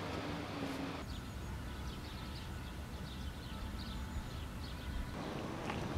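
Outdoor street background: a steady low rumble with faint, short high chirps or ticks scattered through it. The sound changes abruptly about a second in, as at an edit.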